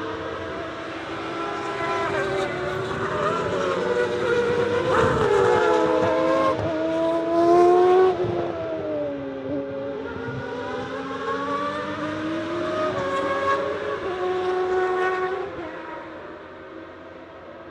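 1992 Formula 1 cars running through a corner, several naturally aspirated racing engines overlapping at high revs. Their pitch sinks and then climbs again in stepped gear changes, loudest about halfway through, and fades away near the end.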